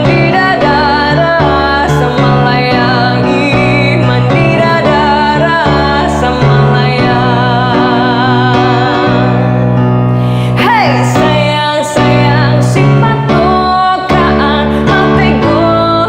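Music with a woman singing long held notes with vibrato over keyboard and backing instruments. A quick falling glide comes about ten seconds in.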